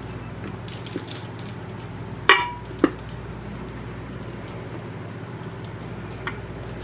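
Glass lid clinking against an Anchor Hocking glass baking dish as it is fitted and pressed on. About two seconds in there is one sharp clink with a brief ring, and a second clink half a second later. A few light taps come before and after.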